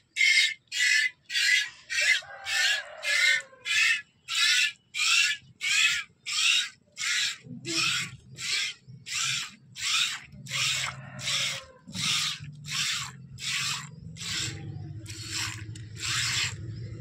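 A goat being milked by hand: squirts of milk hitting a steel bowl in an even rhythm, about one and a half squirts a second. Each is a sharp hiss, loudest at first and softer later as the squirts land in the milk that has collected in the bowl.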